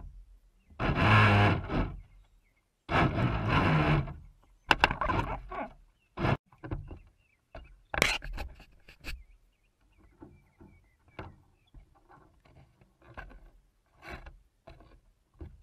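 Water rushing and splashing against a small RC fishing boat's hull in bursts of about a second, then a string of short knocks and splashes as a hooked fish thrashes in the water beside the boat.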